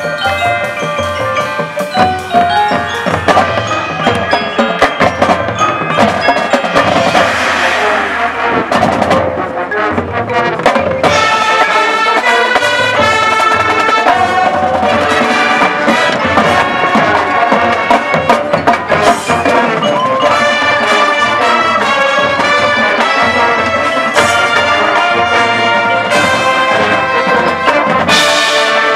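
High school marching band playing its field show: many quick struck mallet-percussion notes in the first half, giving way to sustained brass chords later.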